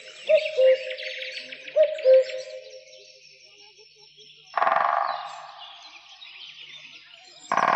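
Forest sound effects: birds chirping and trilling, with a low two-note bird call twice in the first couple of seconds. A woodpecker drums in two short bursts, about four and a half seconds in and again near the end, each dying away within a second.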